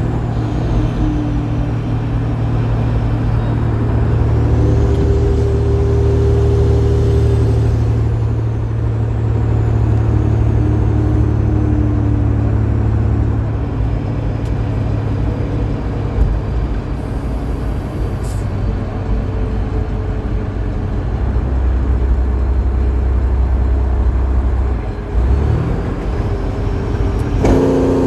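12.7-litre Detroit Diesel Series 60 inline-six in a heavily loaded truck, running steadily under load. About 25 seconds in the sound briefly dips and the pitch then climbs again, as in a gear change.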